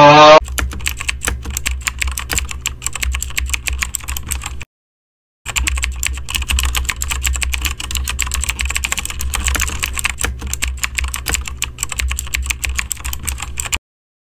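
Rapid computer keyboard typing: a fast stream of key clicks over a steady low hum, pausing for about a second partway through. A brief, loud, voice-like sound cuts off right at the start.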